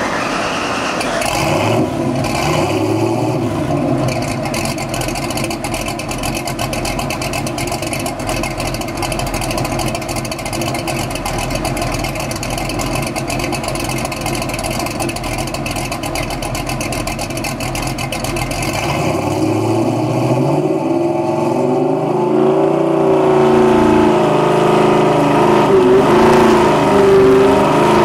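Ford 347 stroker small-block V8 running on a dyno, heard from its exhaust pipes: it holds a steady speed, then from about two-thirds of the way in is revved up and down, getting louder.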